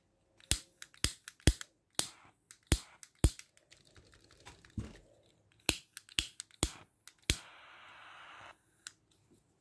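Gas lighter being clicked over and over: more than a dozen sharp, irregular clicks of its igniter, with about a second of hissing gas near the end. The lighter is not lighting reliably, and its owner says it needs replacing.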